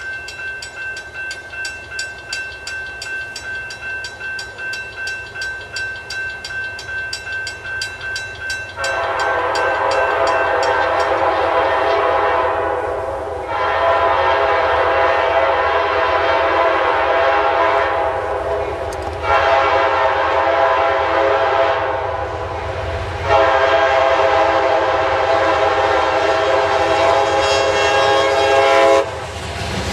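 A grade-crossing bell rings in steady, rapid strikes. About nine seconds in, an approaching freight train's diesel locomotive sounds its air horn in two long blasts, a shorter one and a final long one: the standard signal for a public grade crossing. Near the end the locomotives' rumble grows as they reach the crossing.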